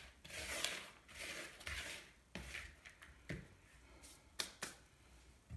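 Hands rubbing and mixing a dry flour-and-suet crumb in a plastic mixing bowl: a few soft rasping rubs in the first two seconds, then several light clicks and knocks.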